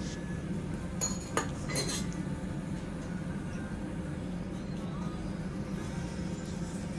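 A few light clinks of dishes and utensils between about one and two seconds in, over a steady low hum.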